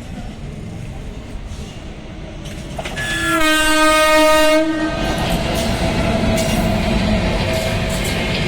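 Indian Railways WAP-7 electric locomotive sounding its horn once, about three seconds in, for about a second and a half: a short higher note, then a lower held tone. Around it are the running noise and wheel clatter of the train picking up speed, growing louder after the horn.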